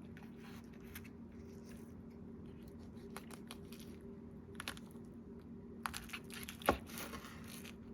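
Faint handling noise: a few scattered soft clicks and rustles, the sharpest about six and a half seconds in, over a steady low hum.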